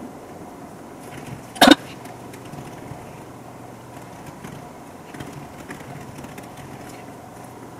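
Soft clicking of laptop keys being typed on, over a steady low room hum, with one loud sharp knock about a second and a half in.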